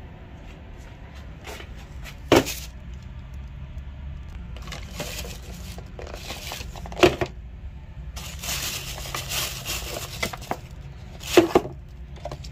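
Thin plastic carrier bag rustling and crinkling as it is opened around plastic takeaway food containers, with a few sharp knocks: one about two seconds in, one about seven seconds in, and the loudest near the end.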